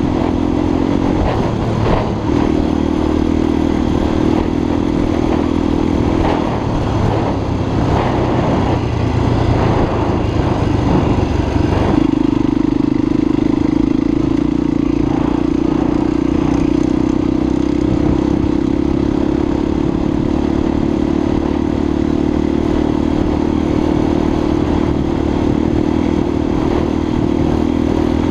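Honda XLR250 enduro motorcycle's single-cylinder four-stroke engine running under way. Its pitch shifts with throttle and gear changes over the first dozen seconds, then holds steady at a cruising speed.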